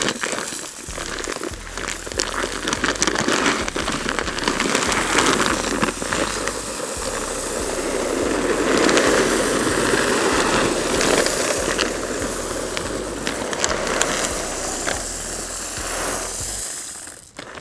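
Leafy tree limbs rustling and crackling with many small snaps as branches are broken off and cleared away.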